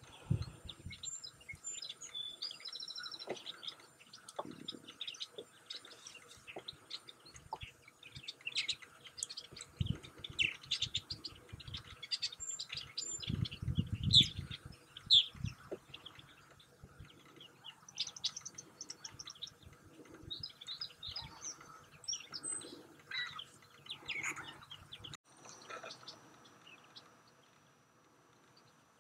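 Common merganser ducklings peeping, a dense scatter of short high chirps from many birds at once, with a few low rumbles mixed in. About twenty-five seconds in, the chirping stops abruptly and only a few faint sounds are left.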